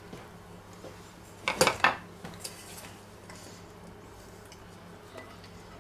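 Kitchen utensils clattering: a quick cluster of three or so metallic knocks and clinks about a second and a half in, as a spatula and a stainless steel bowl are handled against a metal springform pan, then only faint small clinks.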